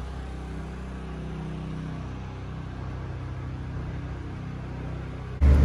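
Steady low mechanical hum with a few fixed droning pitches, like a machine running in a workshop. Near the end a much louder low rumble starts abruptly.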